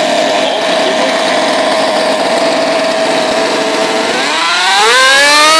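A 60 cc MTC inline twin two-stroke model engine with tuned pipes runs steadily at low speed. About four seconds in, the throttle is opened and the engine speeds up smoothly, its pitch rising for about a second and a half. It settles at a higher steady speed near the end.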